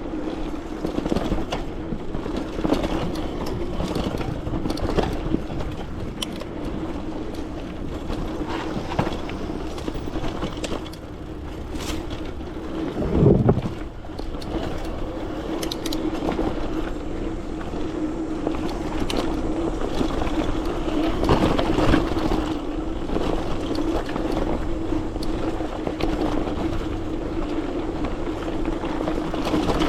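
Bike riding along a trail: tyres rolling over a rough surface with frequent small clicks and rattles over a steady hum, and one louder thump about halfway through.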